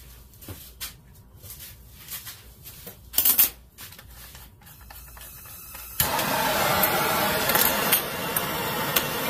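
A handheld gas torch is handled with small clicks and a brief loud burst of noise, then lights about six seconds in and burns with a steady loud hiss. The torch is heating a copper head gasket to anneal it.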